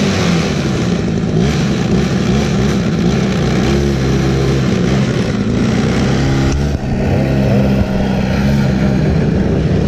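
Small engine of an Arctic Cat Kitty Cat children's snowmobile running steadily, its pitch shifting a couple of times as the throttle changes.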